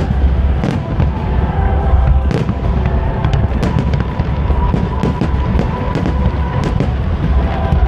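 Aerial fireworks shells bursting, with repeated sharp bangs and crackling, over music with a heavy, steady bass.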